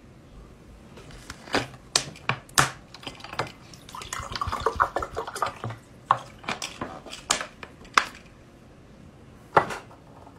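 Water poured from a plastic bottle into a drinking glass for about two seconds, with a gurgling, rippling sound. Before and after it come sharp clicks and knocks as the plastic bottle and glass are handled, with a single louder knock of the glass near the end.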